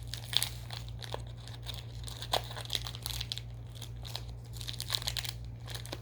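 Plastic candy-bar wrapper being torn open and crinkled by hand: a run of irregular crackles and rustles.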